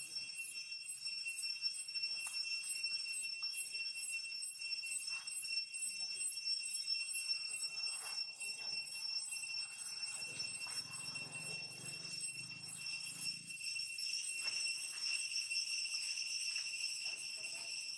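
Infant long-tailed macaque suckling at its mother's nipple: faint, irregular smacking clicks of its mouth. Over it runs a steady, high-pitched pulsing ringing.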